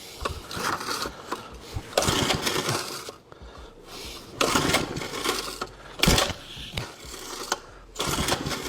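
Small engine's recoil starter being pulled several times, the engine cranking over in separate pulls without catching, while it is tested for spark.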